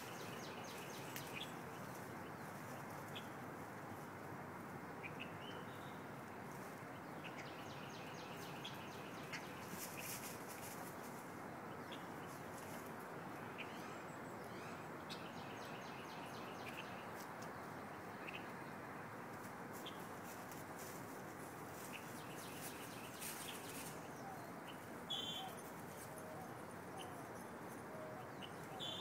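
Small birds chirping and trilling high and faint over steady background noise, with a short louder call about 25 seconds in.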